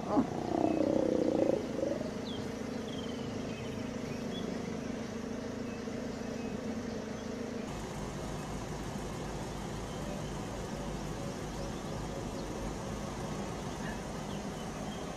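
A mating lion growling in a wavering tone for about a second and a half at the start. It is followed by a steady low rumble of an idling vehicle engine close by.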